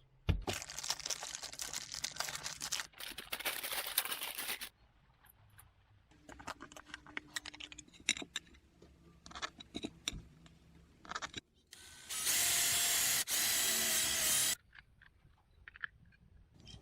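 Workbench tool and handling noises from a small electronics build. Two stretches of rough scraping noise, then scattered clicks and taps, and near the end a loud steady whir lasting about two seconds.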